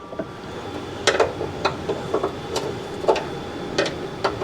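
An adjustable wrench working an engine oil drain plug loose, giving a string of irregular light metallic clicks and knocks, about one or two a second.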